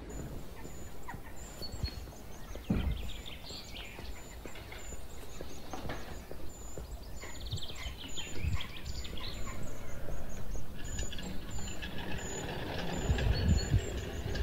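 Birds calling and chattering, with a steady run of short high chirps and occasional low thumps.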